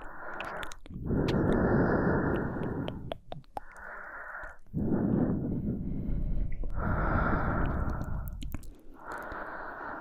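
A woman breathing slowly and close to the microphone: four long, breathy breaths in and out, each lasting about two seconds. Faint mouth clicks fall in the short pauses between them.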